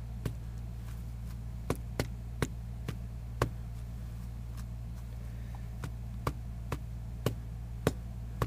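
Ink dauber dabbed again and again onto wet ribbon on a craft mat: sharp taps at about two a second, a little irregular, over a steady low hum.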